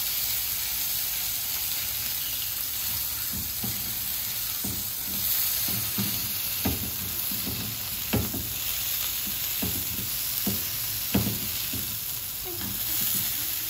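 Beef mince patties sizzling in hot oil on a flat griddle pan while a metal spatula smashes them flat, knocking and scraping against the pan a dozen or so times over a steady frying hiss.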